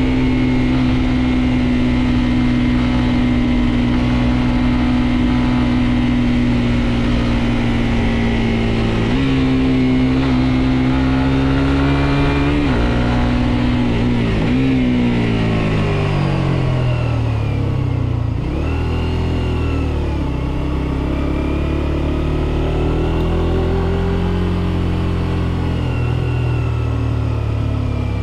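Suzuki GSX-R125's single-cylinder engine under way. It runs steadily at first, its pitch steps up and then drops sharply as gears change, falls away as the bike slows nearly to idle about two-thirds through, and climbs again as it pulls off.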